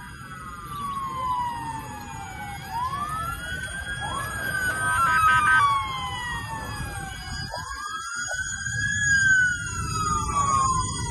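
Several emergency-vehicle sirens wailing at once, their tones overlapping, each rising and then slowly falling in pitch, over a steady low rumble.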